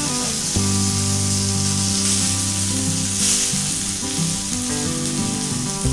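Stuffed pomfret sizzling steadily as it fries in a pan, its semolina coating turning golden and crisp.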